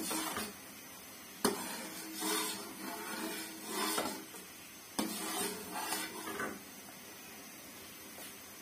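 Metal spoon stirring jaggery syrup in a metal kadai, scraping around the pan with several sharp clinks against its side. The stirring stops after about six and a half seconds.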